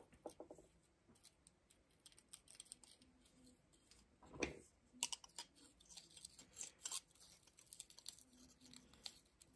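Small screwdriver tip scraping and clicking inside the brass shell of an antique light socket while prying out its mica insulator: faint, irregular ticks and scrapes, with one louder knock about four and a half seconds in.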